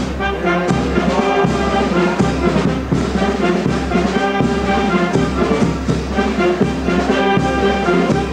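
Music with brass instruments playing sustained notes over a steady, pulsing bass beat.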